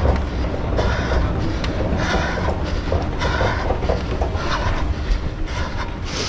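A runner's hard breathing, about one breath a second, with footfalls and a steady rumble of motion on the head-mounted microphone.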